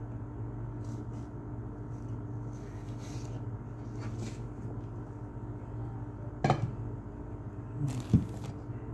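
A metal spoon stirring and scraping a potato and onion mixture in a frying pan, with two sharper knocks of the spoon against the pan about six and a half and eight seconds in, over a steady low hum.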